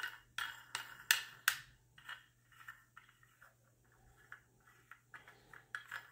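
Small parts of a bathroom faucet being handled and pried off by hand: a quick run of sharp clicks and taps at first, then lighter scattered ticks and scraping.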